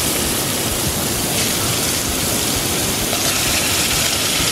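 Chicken pieces frying in hot coconut oil and butter in a cast-iron pot, a steady sizzle.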